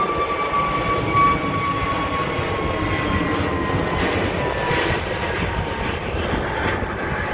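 British Airways Airbus A320-family twin-engine jet climbing out after take-off. Steady jet engine noise with a whine that slowly falls in pitch as the aircraft moves away.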